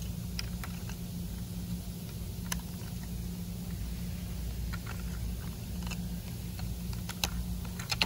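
Scattered light plastic clicks and taps as a circuit board is pressed and fitted back into a 2013 Hyundai Equus's plastic center console housing, the sharpest near the end, over a steady low hum.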